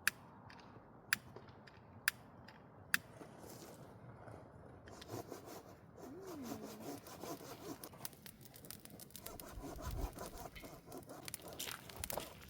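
Firewood being worked for a campfire: four sharp knocks about a second apart, then a rough, scraping rub of wood from about five seconds in.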